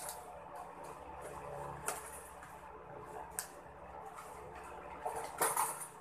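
Small metal doorknob parts clinking and clicking as they are handled, with a few separate sharp clicks and a louder cluster of rattling clicks near the end.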